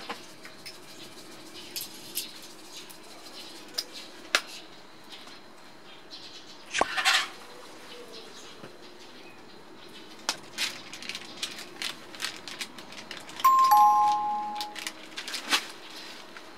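Small clicks and taps of seasoning containers handled over a plastic mixing bowl, with a short rattling burst about seven seconds in. Near the end a two-note chime sounds, a higher note then a lower one, like a ding-dong, and it is the loudest thing here.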